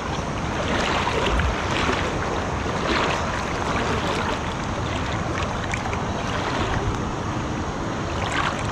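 Steady rush of water flowing over a rocky dam, with small scattered splashes.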